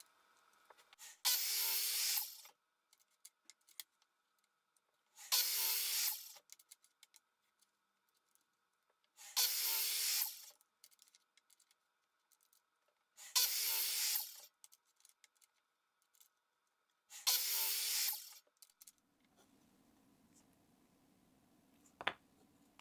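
Circular saw on a slide guide cross-cutting small pine blocks: five short cuts, each about a second and a half, roughly four seconds apart, with light clicks of wood blocks being set in place between them.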